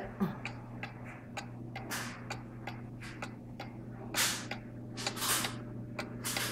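Ansonia 'Buffalo' kitchen mantle clock from about 1895, its pendulum movement ticking steadily in a regular beat. A few louder brushing or rustling noises come about 2, 4 and 5 seconds in.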